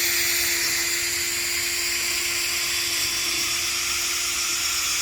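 Power drill spinning a dryer-vent cleaning brush on a rod inside the vent duct: a steady high whine with a hiss, held without a break.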